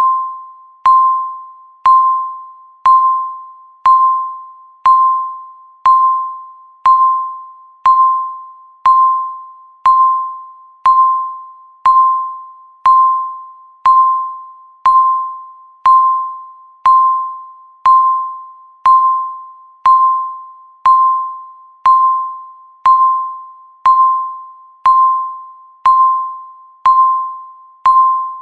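Countdown timer beeping once every second: a short electronic tone of about 1 kHz with a sharp onset, fading quickly after each beep.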